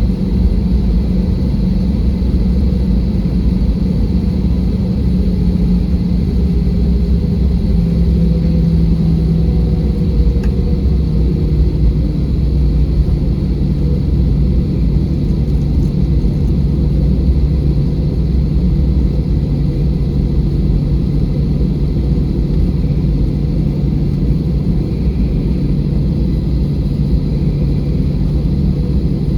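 Steady cabin rumble of an Airbus A320 from inside the passenger cabin: jet engine and airflow noise with a low hum whose pitch steps down a little about a third of the way through.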